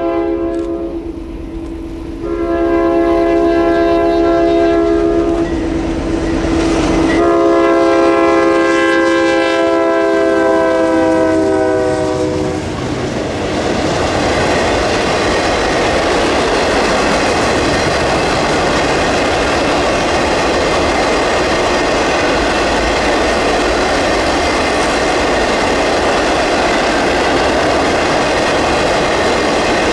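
Freight locomotive's multi-note air horn sounding in long blasts, the last one sagging slightly in pitch as it goes by. About 13 seconds in it gives way to the steady rumble and wheel clatter of a train of empty ore cars rolling past.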